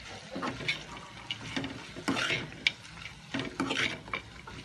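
Steel ladle scraping and knocking against a steel kadai as shredded cabbage and vegetables are stir-fried, with a light sizzle that swells twice.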